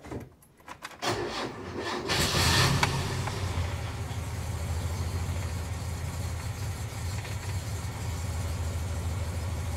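Mazda B-Series pickup's engine cranking on the starter for about a second, catching about two seconds in with a brief rev, then settling into a steady idle. It is a cold start, and the engine runs a little rough while cold.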